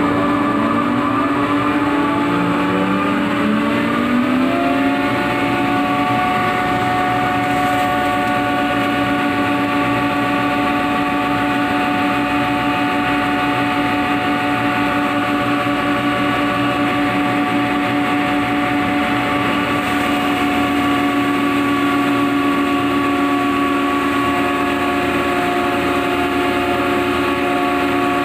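Chilli-grinding plant machinery running loudly and steadily, with a machine whine made of several steady tones. Some of the tones climb in pitch over the first few seconds, then hold steady as the machine comes up to speed.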